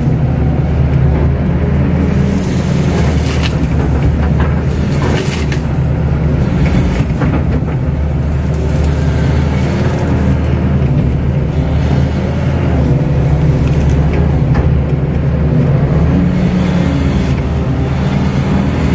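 Kato crawler excavator's diesel engine running steadily under working load, with a few brief clanks as it digs and moves soil.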